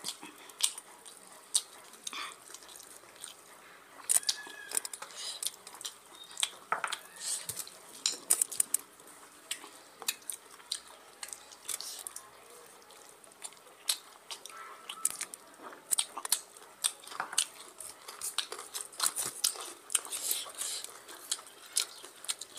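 Close-up eating sounds: wet chewing and lip smacking from two people eating rice and curry by hand, in many short, irregular clicks.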